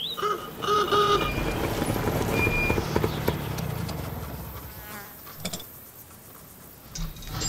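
A fly buzzing in short wavering passes during the first second, then the low rumble of an old car's engine that fades away after about five seconds, with a few clicks.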